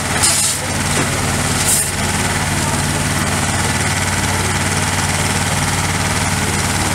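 Fire truck engine running steadily to drive the hose pump, with a hiss of water spray and steam from the hosed-down waste bin. Two brief louder hisses come in the first two seconds.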